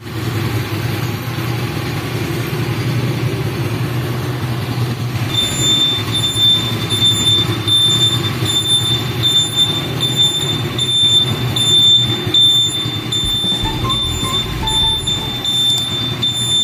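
A 125cc ATV's single-cylinder engine idling, a steady mechanical rumble, with a thin high whine joining about five seconds in.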